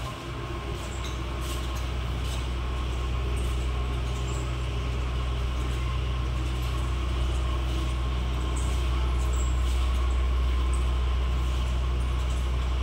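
A steady low mechanical hum, like a motor or pump running, slowly growing a little louder, with a few faint clicks over it.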